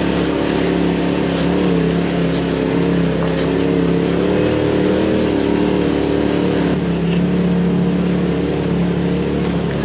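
Side-by-side UTV engine running with a steady drone while driving slowly along a rocky trail, heard from on board the vehicle.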